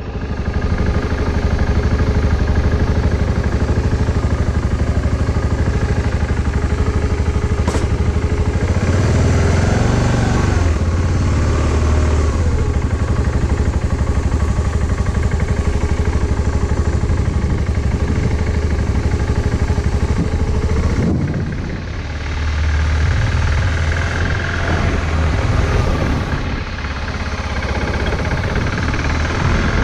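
A vehicle engine running steadily, its pitch shifting about ten seconds in and again a little past twenty seconds, as the revs change.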